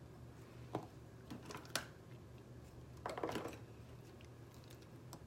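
Faint clicks and taps of small makeup items being handled, with a short crackly handling noise about three seconds in, as lash glue is put on a pair of false lashes.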